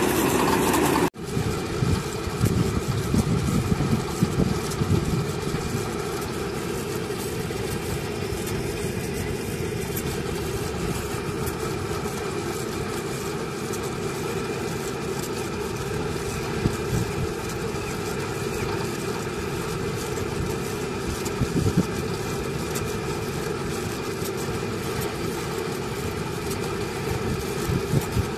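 Truck-mounted borewell drilling rig running: a steady engine sound with occasional knocks from the drilling. The sound breaks off briefly about a second in, then carries on.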